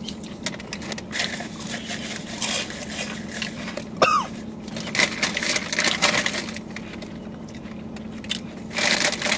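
Crunchy rolled tortilla chips (Takis Fuego) being chewed, heard as irregular clusters of crackly crunches, mixed with the crinkle of a plastic chip bag. A steady low hum runs underneath, and there is a brief falling vocal sound about four seconds in.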